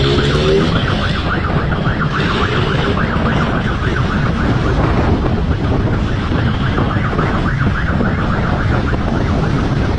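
Emergency siren in a fast warble, several cycles a second, over the steady rumble of a motorcycle engine and wind noise on the microphone.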